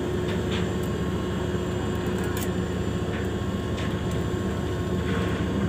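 A large moored ship's machinery running with a steady low hum that holds an even level throughout.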